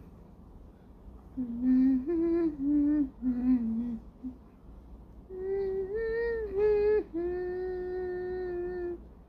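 A woman humming a slow, wordless tune: a few short notes, then longer held notes, the last held steady for about two seconds.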